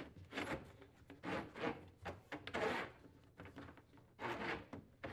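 Corrugated plastic dishwasher drain hose being pulled through a hole in a wooden cabinet wall, its ribs rubbing and rasping against the edge of the hole in several short pulls.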